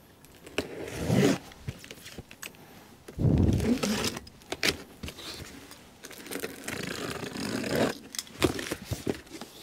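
Knife slitting the packing tape on a large cardboard box, with rasping scrapes and rustling of the cardboard, loudest about three seconds in and again near the end.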